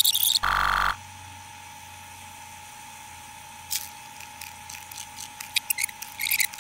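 Digital glitch sound effects: a burst of static and a short, harsh electronic buzz, then a steady high electronic tone over a low hum. Rapid keyboard typing clicks come in over it near the end.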